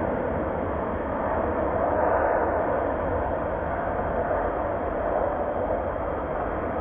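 Jet airliner engines heard as a steady rushing noise that holds at one level, with no distinct whine or tone.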